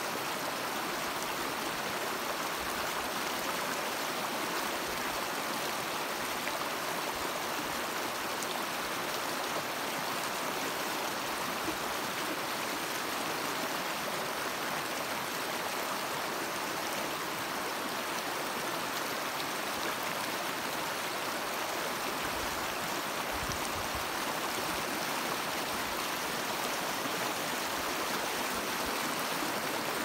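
Shallow mountain stream rushing over rock slabs and around boulders: a steady, unbroken rush and splash of water.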